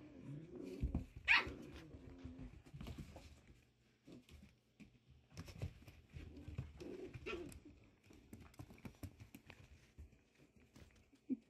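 Six-week-old Pyredoodle puppies play-fighting: small growls and a sharp high yip about a second and a half in, with scuffling knocks of paws and bodies throughout.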